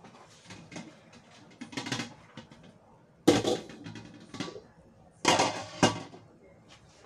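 Cookware clattering as a wok is set down and shifted on the stovetop: a few clanks and scrapes, the loudest about three seconds in, then two more clanks a little after five seconds.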